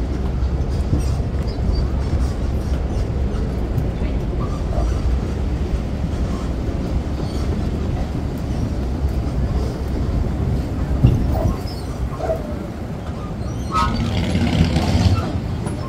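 Boardwalk tram running steadily, a continuous low rumble from its motor and wheels rolling over the wooden boardwalk planks.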